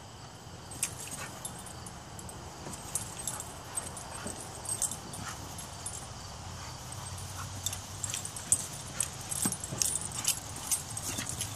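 A dog whimpering and yipping, with many short sharp ticks that come more often near the end.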